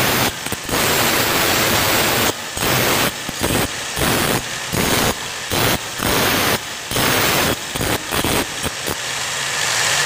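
Grinder wheel grinding down a steel bar end, a welded-on steel strip. The grinding is loud and drops back many times at irregular intervals as the bar is pressed to the wheel and eased off.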